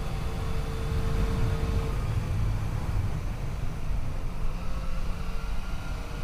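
Yamaha FJ-09's inline-three engine running at a steady cruise under a heavy rush of wind on the microphone.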